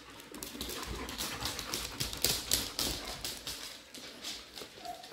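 Dogs moving about, their claws clicking irregularly on a hard floor, a few clicks a second.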